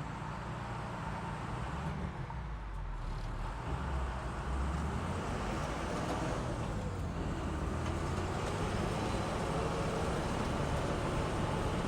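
Engine and running noise of a 1942 GMC DUKW amphibious 'duck' vehicle carrying its passengers: a steady low rumble that grows louder about four seconds in.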